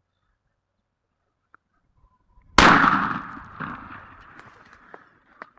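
A single shotgun shot at a wild turkey gobbler about two and a half seconds in, very loud and sudden, its report rolling away over the next couple of seconds. A few small knocks follow near the end.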